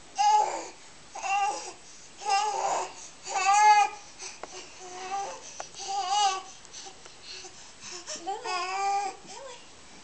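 Baby babbling in a run of short, high-pitched, sing-song calls, about seven of them, loudest in the first four seconds.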